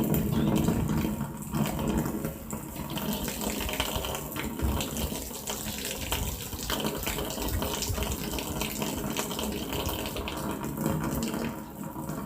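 Waterfall: water falling and splashing in a steady rushing noise.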